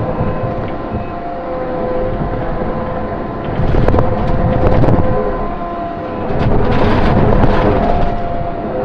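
Takeuchi TL12 skid steer running under work, with a steady whine. It grows louder and rougher twice, about three and a half seconds in and again about six and a half seconds in.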